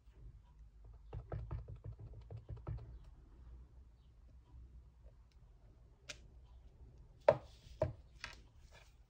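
Clear resin stamp on an acrylic block dabbed repeatedly onto a Stampin' Pad ink pad, a quick run of soft taps for about two seconds. Later come two sharp knocks about half a second apart.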